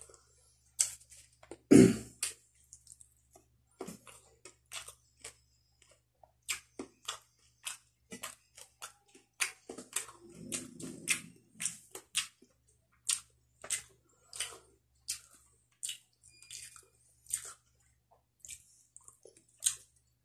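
Close-miked chewing of grilled tanigue and rice eaten by hand: a steady run of short, wet mouth smacks and clicks, with a louder knock about two seconds in.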